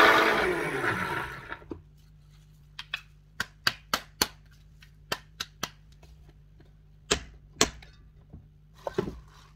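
NutriBullet personal blender grinding barley grain into flour, its motor spinning down with a falling whine in the first two seconds. Then a run of sharp clicks and knocks as the blender cup is handled, two louder knocks about seven seconds in.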